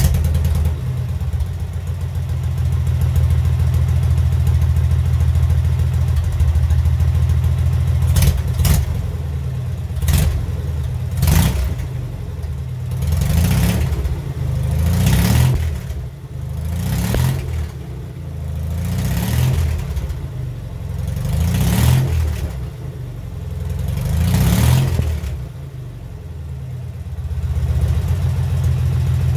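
Fully rebuilt Soviet K-750 side-valve flat-twin motorcycle engine running on a test stand. It idles steadily at first, then from about eight seconds in is revved with the twist grip in repeated blips, a few quick ones and then longer swells about every two seconds. Near the end it settles back to idle.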